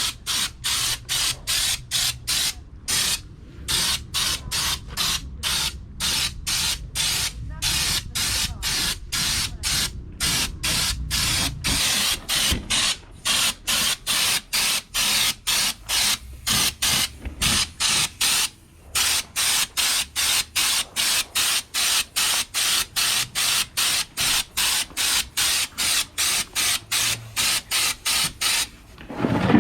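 Compressed-air spray gun spraying in short, rapid trigger bursts of hiss, about two a second, as coating is laid onto a truck bed. A single louder thud comes right at the end.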